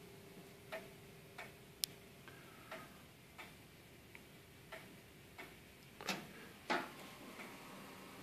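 Herschede nine-tube grandfather clock ticking steadily, about three ticks every two seconds, with two louder clacks near the end.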